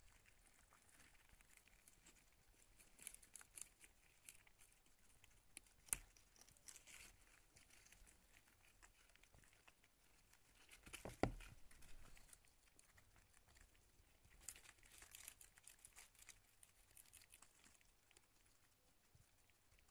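Faint rustling and crinkling of wood-shaving and newspaper bedding in a hamster cage, with small scattered clicks and two soft knocks, the louder one about eleven seconds in.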